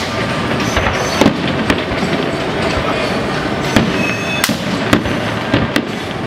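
Aerial fireworks shells bursting: sharp bangs every second or so, the loudest about a second in and near four and five seconds, over a continuous crackling rumble.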